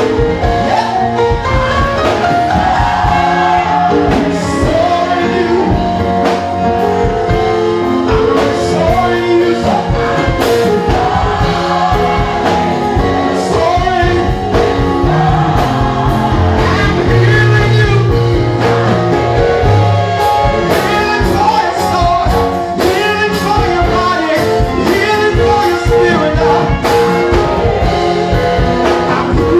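Gospel choir singing live with keyboard and saxophone accompaniment.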